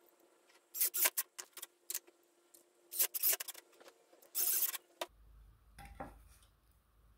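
Several short rasping scrapes, each under half a second, from a cordless drill and its screwdriver bit being handled. A soft knock about six seconds in as a wooden board is laid on the workbench.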